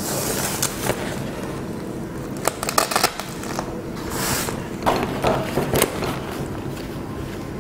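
Black softbox fabric rustling and crinkling as it is pulled and fitted by hand, with scattered clicks and taps. A steady low hum runs underneath.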